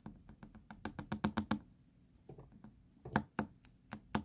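Light clicks and taps of a brass padlock plug and its small pin-tumbler pins being handled and tipped out into a plastic pin tray. A quick run of clicks about a second in, and another cluster near the end.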